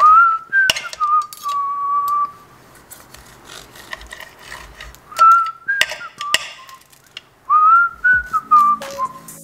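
A person whistling a wavering tune in short phrases with pauses, over sharp clicks of a chef's knife striking the cutting board as raw chicken breast is sliced into strips.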